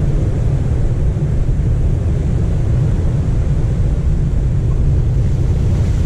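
Steady low rumble of wind buffeting the microphone over the wash of surf breaking on a rocky shore.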